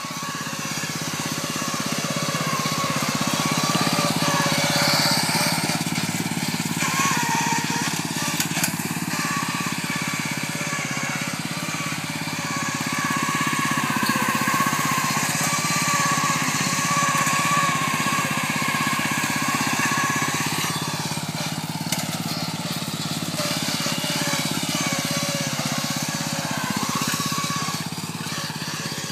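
Riding lawn mower's engine running steadily under load as the mower is driven through dense brush. Its sound swells and eases several times, with scattered crackling from the undergrowth it pushes through.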